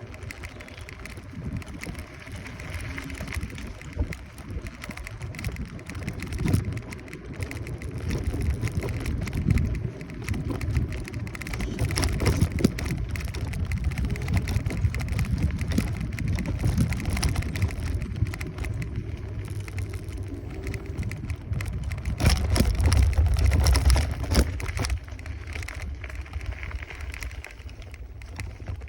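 Wind buffeting the microphone and road rumble from a Kaabo Wolf Warrior 11 Pro electric scooter riding along, with occasional sharp knocks. The rumble swells loudest about twenty-two seconds in, then eases off.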